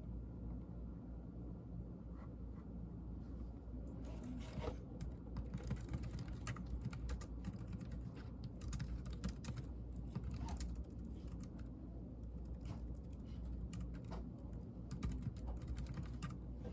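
Typing on a Logitech K380 Bluetooth keyboard: its low-profile keys clicking in irregular runs, starting about four seconds in, over a low steady hum.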